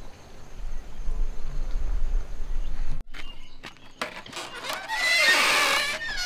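A loud, drawn-out animal call with a wavering pitch, starting about five seconds in and lasting over a second, after a few seconds of low rumble and a couple of knocks.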